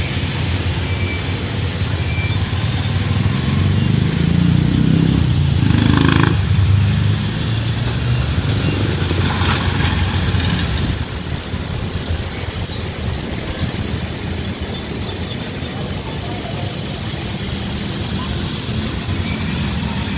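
Boeing 737 jet engines rumbling during the landing rollout. The roar swells over the first several seconds and then eases to a steadier, lower rumble.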